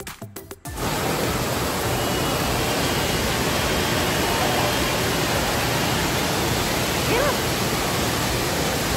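Music cuts off under a second in, giving way to a steady rush of water pouring down indoor water-park slides and churning in their run-out lanes.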